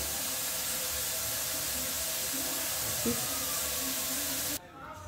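Steady, even hiss with a faint hum under it, cutting off suddenly about four and a half seconds in.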